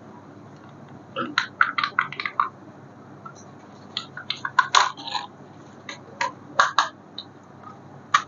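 Irregular short clicks and clattering knocks of small hard objects being handled, coming in bunches at about one, four to five, and six to seven seconds in.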